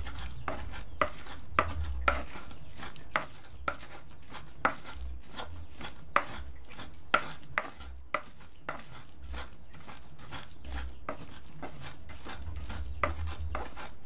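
Pestle grinding chili spice paste by hand in a cobek mortar, scraping and knocking against the bowl, with irregular sharp knocks about once a second that thin out after the middle.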